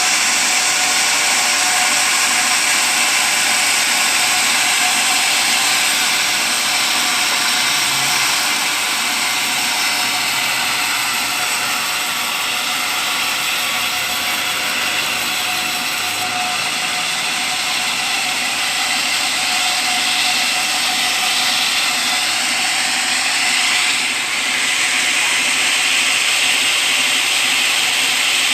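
Sawmill saw running steadily as it cuts teak into 8 x 8 cm beams: a loud, dense mechanical noise, slightly lower in level through the middle.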